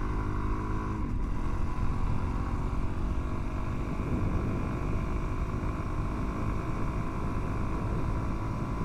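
Suzuki DR-Z400 dirt bike's single-cylinder four-stroke engine running while riding on loose gravel, with steady low rumble of tires and wind. The engine's note changes and drops back about a second in.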